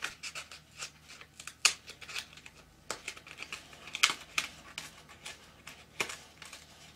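Pre-die-cut cardstock pieces being pushed out of a 3D die-cut pad by hand: irregular crisp snaps and crackles as the punched edges break free, the loudest about one and a half, four and six seconds in.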